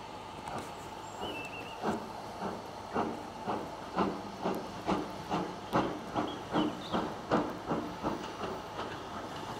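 Steam locomotive working away, its exhaust chuffing in regular beats about two or three times a second, quickening slightly, over a steady hiss of steam. The beats are loudest in the middle and ease off near the end.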